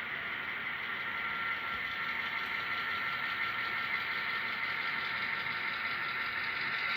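Diesel prime-mover sound from a LokSound sound decoder, playing steadily through the small speaker of a running model locomotive.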